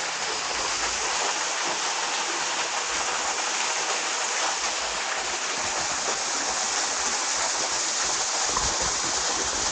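Mountain stream running over rocks in a rocky gorge, a steady rushing hiss.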